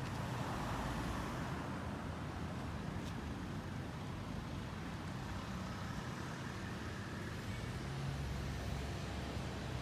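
Steady street background noise with passing road traffic; a low vehicle engine hum comes in about eight seconds in.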